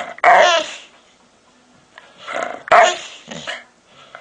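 Dog making odd, wavering vocal noises to get attention: a short call about a third of a second in, then a louder run of calls around two and a half to three seconds in.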